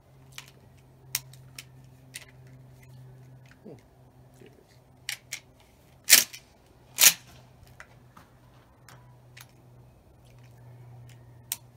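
Clicks and clacks from a Mossberg 500 pump-action shotgun being handled, then two loud sharp bangs a little under a second apart just past the middle, followed by a few more light clicks.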